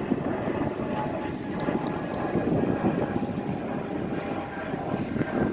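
Wind buffeting the microphone in uneven gusts over a steady harbour rumble, with a faint steady hum underneath.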